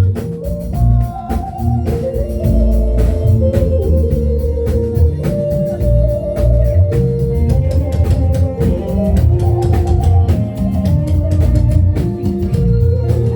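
Music with an organ-sounding keyboard carrying the melody over a heavy bass line and drums keeping a steady beat.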